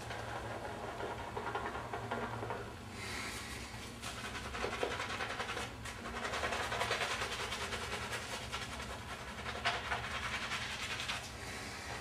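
Boar bristle shaving brush swishing warm lather onto the face in repeated strokes, louder in stretches, over a steady low hum.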